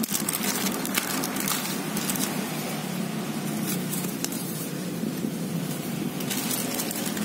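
Plastic zip bag crinkling in the hands, then paper rustling as a folded instruction manual is leafed through, in many short crackles over a steady low hum.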